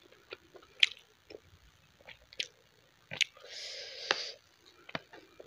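Close-miked eating sounds: fingers squishing and mixing cooked rice with curry, with several sharp wet mouth clicks and a longer wet squelch about three and a half seconds in as a handful goes into the mouth.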